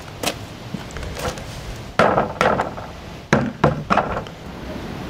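Plastic bucket being emptied into a wooden compost bin: a series of knocks and thuds of bucket against the wooden boards, the loudest about two seconds in and a quick cluster of knocks near the four-second mark.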